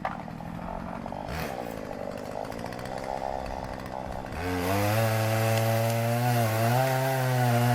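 Chainsaw idling, then opened to full throttle about four and a half seconds in and cutting into a tree trunk. Its pitch dips and recovers as the chain bogs under load in the wood.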